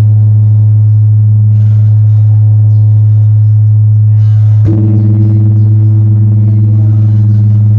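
Huge five-ton bronze bell ringing with a loud, deep, steady hum and higher ringing tones above it. It is struck again about four and a half seconds in, bringing a fresh swell of the higher tones. The bell is being test-rung after assembly.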